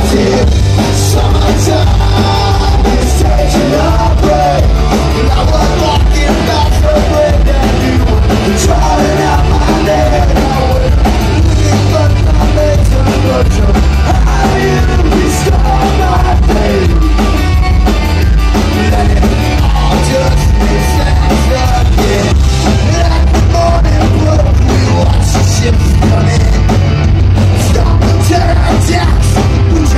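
A reggae-punk band playing loud and live through a club PA: electric guitars, bass, drums and keyboard, with a singer's vocals over a steady, heavy beat.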